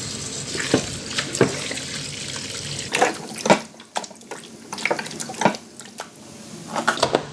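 Tap water running into a glass bowl of cut raw chicken pieces, falling away about three and a half seconds in. After that, hands rub and slosh the chicken in the water, with irregular splashes and light knocks against the bowl.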